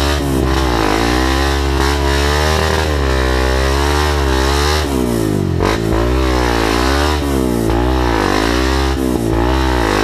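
Dirt bike engine, heard from the rider's own motorcycle, running hard on a rough trail and revving up and down with the throttle. In the second half the engine pitch rises and falls quickly, about twice a second.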